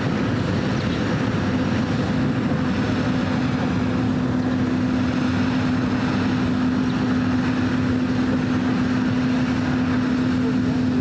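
An engine-like machine running steadily: a constant hum over an even rushing noise, unchanging throughout.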